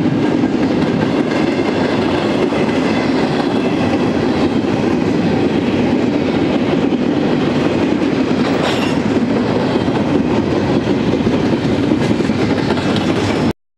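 Empty double-stack intermodal well cars of a freight train rolling past, a steady rumble and rattle of steel wheels on the rails. The sound cuts off suddenly near the end.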